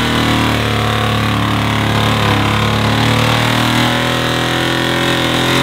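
Pickup truck's engine running steadily at a low, even speed. The truck is a wrecked Chevrolet Z71 pickup that is still running after being driven through a house.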